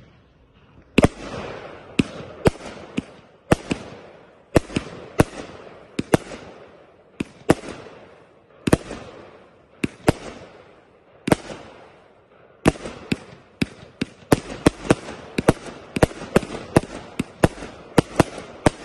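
Consumer fireworks cake firing shot after shot: each sharp report is followed by a fading hiss of silver fish stars. The shots come about a second apart at first and speed up to nearly two a second over the last six seconds.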